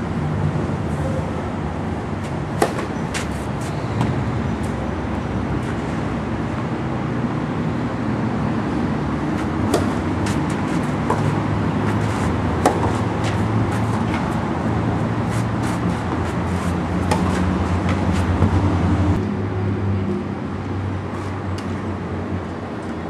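Tennis balls struck by rackets and bouncing on a clay court: scattered sharp pops, the loudest about two and a half and twelve and a half seconds in. Under them runs a steady low rumble of road traffic.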